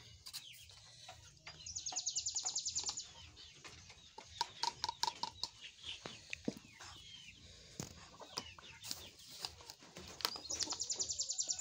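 Flour being measured and sifted by hand: a metal cup and a wire sieve clink and tap against a plastic bowl, with two short runs of fast, even rattling that are the loudest sounds. Chickens cluck in the background.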